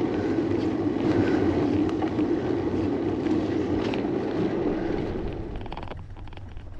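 Steady rush of wind on the microphone and tyre noise from a bicycle being ridden, dying down about five seconds in.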